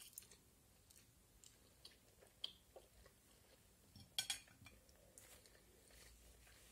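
Faint chewing of a mouthful of spaghetti, with scattered small mouth clicks. About four seconds in, a metal fork briefly clinks against the plate.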